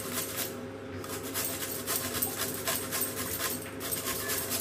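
White radish being grated on a flat stainless-steel hand grater: a quick, even run of rasping strokes as the radish is pushed over the blades.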